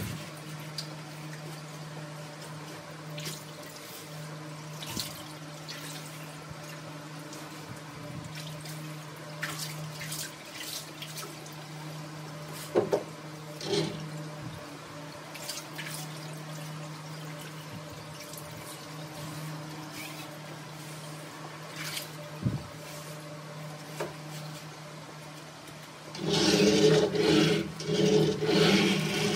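Steady low hum of a lapidary slab saw with a 24-inch diamond blade, with coolant dripping in the saw's hood and a few knocks as the vise and carriage are handled. About 26 seconds in, a louder noise starts that pulses several times.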